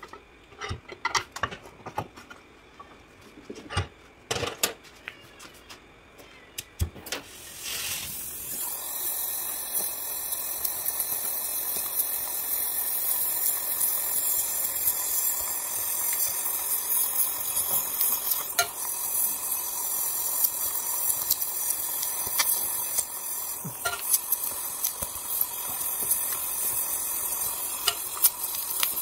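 Scattered light taps and clicks, then about eight seconds in a gas welding torch flame starts a steady hiss with occasional crackles as it heats the aluminium case.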